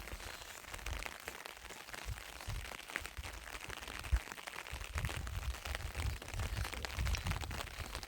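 Rain falling, with irregular low rumbling buffets on the microphone that grow stronger in the second half, and one sharp knock about four seconds in.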